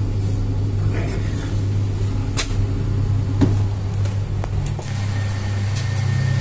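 Steady low mechanical hum of bakery equipment, with a few light knocks and taps.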